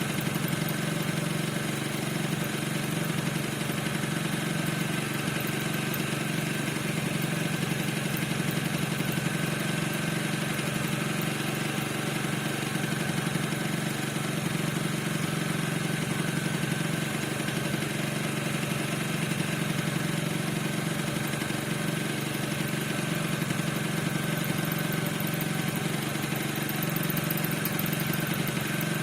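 Piaggio NRG 50 scooter's two-stroke engine idling steadily, with a thin, steady high squeak running over the engine note. The cause of the squeak is unknown to the owner.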